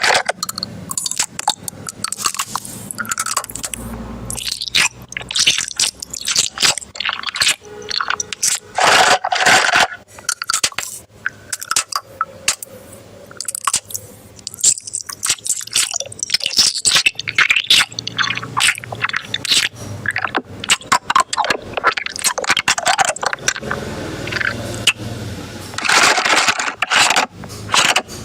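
Crunchy food being bitten and chewed: an irregular run of crackling crunches and clicks, louder in a few bursts.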